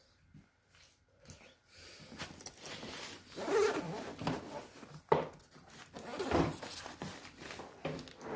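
A zipper on a fabric carry bag being pulled and the bag's material rustling and scraping as it is handled, beginning after about a second and a half, with a sharp click about five seconds in.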